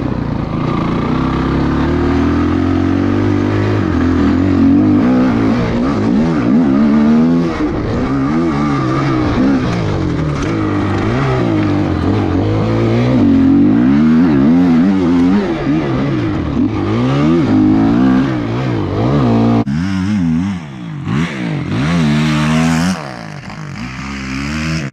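Dirt bike engine revving hard and easing off over and over as it is ridden around a snowy track, pitch rising and falling through the throttle and gear changes. Just before the end the engine briefly drops off, then comes back in a few shorter revs.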